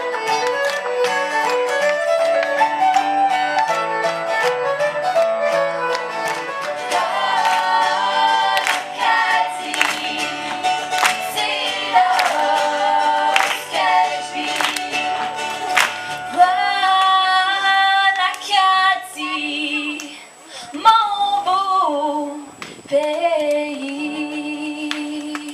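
Female vocal group singing with instrumental accompaniment, with a stretch of regular sharp beats in the middle; the song closes on a long held note.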